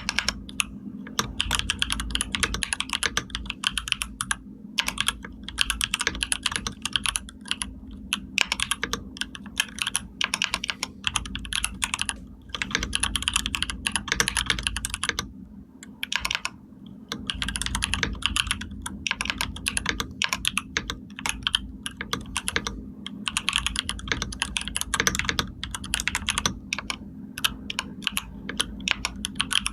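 Typing on a computer keyboard: keys clicking in quick runs, broken every few seconds by short pauses.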